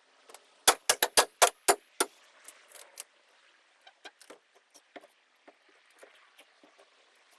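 Metal hand tool striking during removal of rotted boat stringers and foam: a quick run of about seven sharp metallic strikes, roughly four a second, in the first two seconds, then scattered lighter knocks and clicks.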